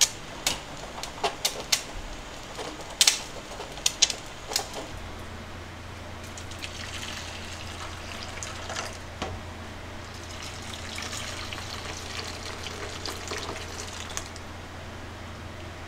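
A run of sharp clinks and clicks in the first few seconds, then water poured from a jug into two stainless steel cups, one after the other, the second pour longer.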